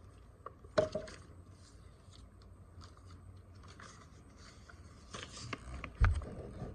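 Handling noise from the small card reader adapter and its packaging being moved about: light rubbing and scraping, with a sharp knock a little under a second in and a louder, duller knock near the end.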